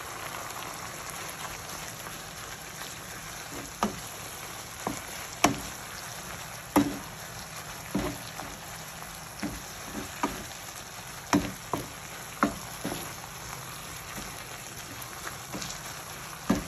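Green peppers and cherry tomatoes sizzling steadily in a frying pan, with sharp knocks of a wooden spoon against the pan about once a second from about four seconds in as they are stirred.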